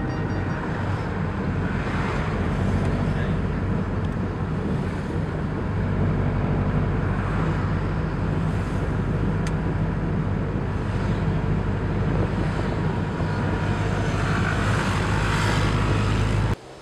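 Engine drone and road noise heard from inside a moving passenger vehicle, a steady low hum under a broad rush. It cuts off abruptly near the end.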